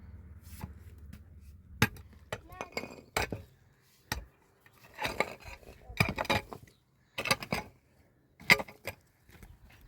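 Irregular knocks and clinks of hard objects being handled, in short clusters of sharp strikes.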